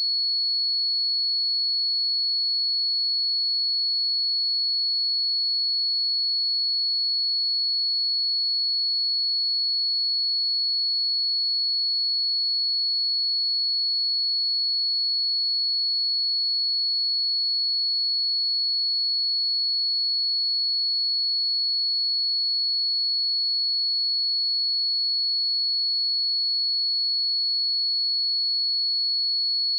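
A steady, unbroken 4378 Hz sine-wave test tone: a single high-pitched pure tone held at one pitch and level.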